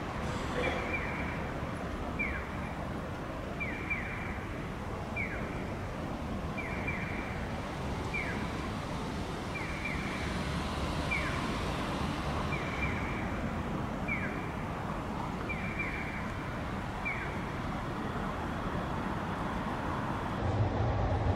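Steady city traffic noise with a Japanese pedestrian-crossing audible signal chirping over it. Its short falling 'piyo' tones alternate one and two about every second and a half, then stop near the end.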